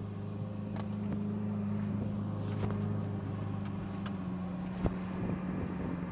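Vehicle engine running loud at a steady speed, an even low drone; one short knock a little before five seconds in.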